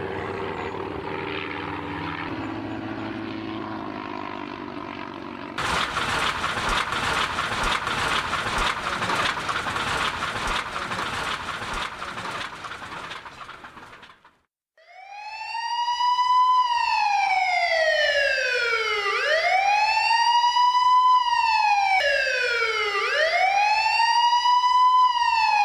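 Sound-effect sequence of a plane coming down: a small plane's engine drones with slowly sinking pitch, then a sudden loud crash with crackling and clattering breaks in and fades away. After a moment's silence a police car siren starts, wailing up and down about every four seconds.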